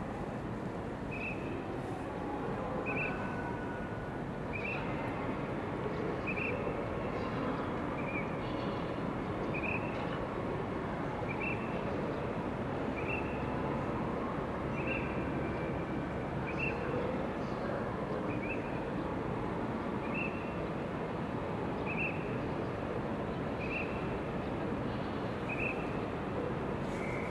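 Steady machinery noise from a Sumitomo CT-15000 crawler crane slewing its upper body, with a short high beep repeating roughly every two seconds.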